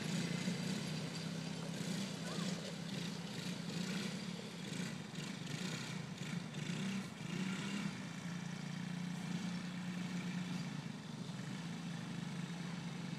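Small engines of children's quad bikes running with a steady drone as they ride around.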